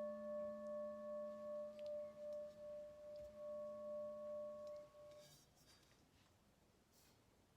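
A bell rings on after being struck, several pure tones pulsing slowly in loudness as they fade, then cuts off suddenly about five seconds in. A few faint clicks follow.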